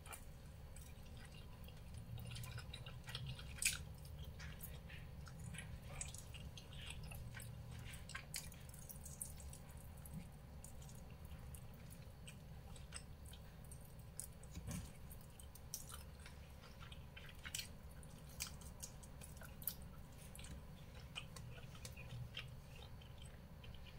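A person biting and chewing pork ribs in black bean sauce: faint, scattered wet mouth clicks and smacks over a steady low hum.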